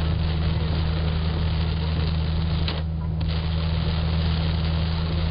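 Heavy rain hitting a taxi's roof and windscreen, heard from inside the cabin over the steady low drone of the engine and tyres on the flooded road. The rain noise drops out for about half a second around three seconds in, as the car passes under an overpass.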